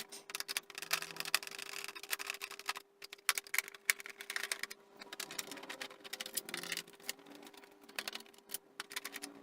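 Irregular clicks and rattles of a screwdriver turning out the screws of a BBC Master 128's case. A faint steady hum runs underneath.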